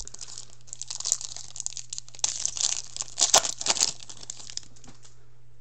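Foil wrapper of a Crown Royale hockey card pack being torn open and crumpled by hand: a rapid crackling, loudest in the middle, dying away about five seconds in.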